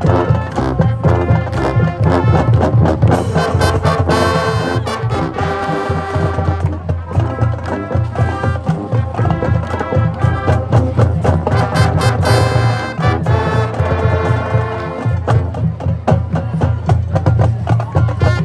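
High school marching band playing a full brass arrangement, with drums keeping a steady beat.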